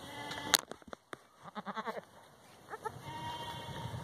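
Boer goats, a doe with her newborn kids, giving short low bleats, one run of calls about a second and a half in and another near three seconds. A sharp click about half a second in is the loudest sound.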